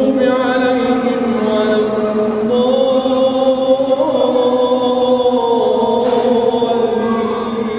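A man reciting the Quran aloud in the melodic, chanted style. He draws out long held notes whose pitch wavers and slides in ornaments.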